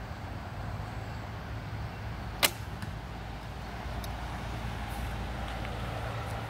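Kaya Black Cat Korean horsebow shot with a thumb release: a single sharp snap of the bowstring about two and a half seconds in, over a steady low rumble.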